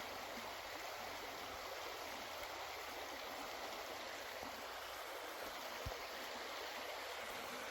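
A low, shallow river flowing: a steady, even rush of water, with one soft low bump about six seconds in.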